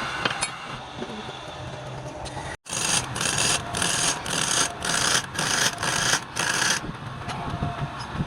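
Wood lathe running with a steady hum, then after a short break a tool or abrasive rubbing against the spinning wood in about eight rhythmic scraping strokes, roughly two a second, settling into a steadier rub near the end.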